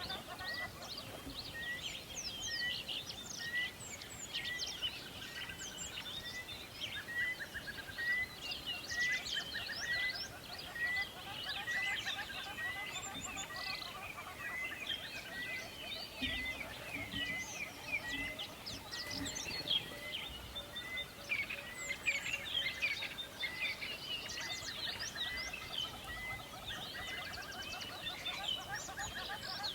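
Many wild birds chirping and trilling together. One bird repeats a short rising note evenly, about three notes every two seconds, for most of the first twenty seconds before falling silent.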